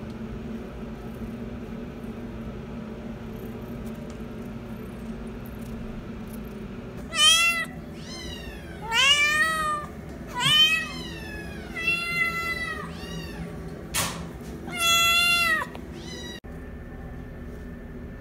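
Domestic cat meowing repeatedly: about six meows in a row, some short and some drawn out, the longest near the end. Before them is a steady low hum, and there is one sharp click between the last two meows.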